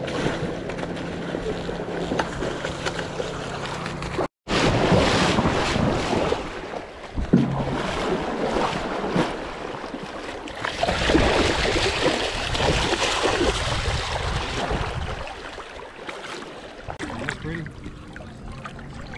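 River water sloshing and splashing close to the microphone, with wind buffeting it, broken by a brief dropout to silence about four seconds in.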